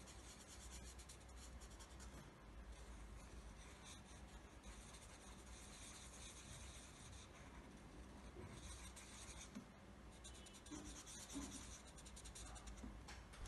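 Black marker scribbling on paper wrapped around a cardboard toilet-paper roll, faint quick strokes in runs with short pauses, as Dalmatian spots are drawn and coloured in.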